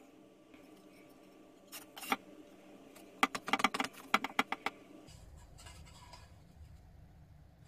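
Hands handling a freshly glued wooden box and glue bottle on a workbench: a couple of small clicks, then a quick run of sharp clicks and light taps a little after three seconds in, followed by a low rumble as the box is lifted.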